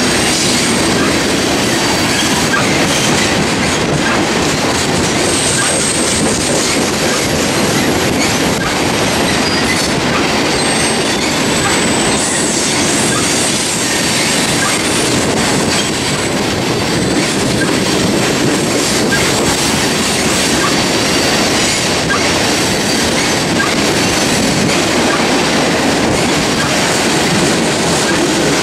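Two freight trains rolling past side by side, a loaded coal train of hopper cars and an intermodal train of trailers on flatcars. Their wheels keep up a loud, steady rumble and clatter on the rails, and thin high wheel squeals come and go in the first half.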